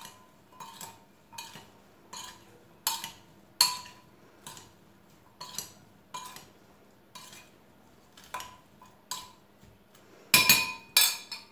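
Metal spoon stirring pepper strips with oil and seasoning in a glass mixing bowl, clinking against the glass about once or twice a second, each clink ringing briefly. A louder, quicker run of clinks comes near the end.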